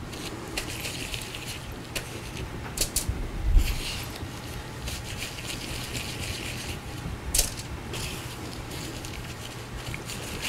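Soft rustling of disposable gloved hands working a soft cookie dough, scooping it from a bowl and rolling it into balls, with a few light knocks about 3 seconds in, near 3.5 seconds and past the middle.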